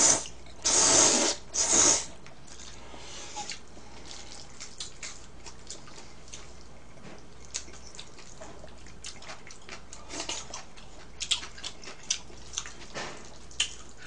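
Gan-jjajang noodles in black bean sauce being slurped: three loud wet slurps in the first two seconds. Then chewing, with scattered small clicks and smacks.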